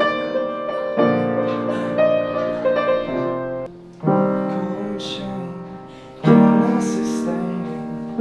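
Piano playing slow chords, each struck and left to ring and fade. A new chord comes every two to three seconds, the loudest about six seconds in.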